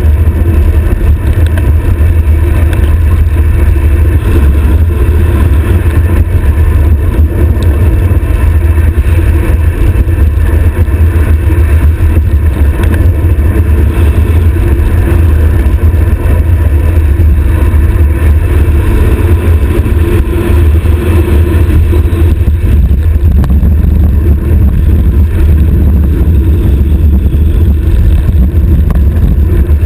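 Wind rushing over a stem-mounted action camera's microphone on a road bicycle descending at high speed: a loud, steady low rumble of wind buffeting.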